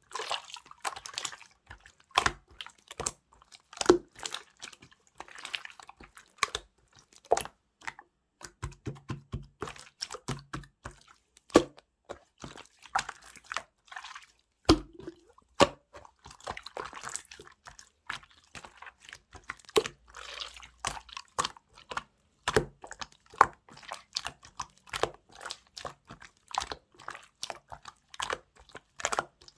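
Mixed slime being squished, stretched and pressed by hand, giving an irregular stream of sharp pops, clicks and wet crackles.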